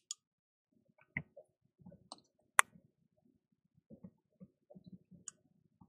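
Faint, scattered small clicks and taps of hand tools being handled at a microsoldering bench, with one sharper click a little past halfway.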